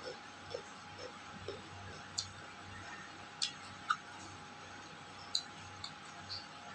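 Eating sounds while chewing a meal of rice and fish: soft mouth smacks early on and a scatter of sharper clicks every second or so, over a faint steady hum.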